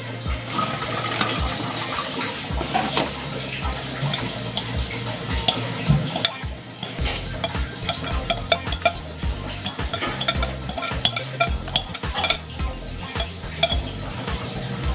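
Spoon scraping and clicking against a clear bowl as soaked, drained glutinous rice is scooped and tipped into a banana-leaf-lined steamer pot, with many irregular clinks and scrapes that come thicker in the second half.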